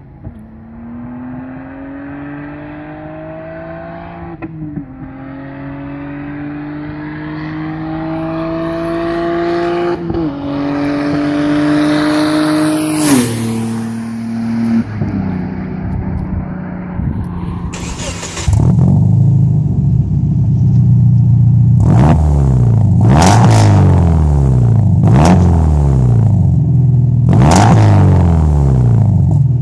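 Tuned Saab 9-3 (stage 5, E85) accelerating through the gears toward the camera, engine pitch climbing in three steps with gear changes, then dropping as it passes and pulls away. About two-thirds of the way through, a Subaru Impreza flat-four exhaust takes over, loud and close at the tailpipe, revved up and down several times.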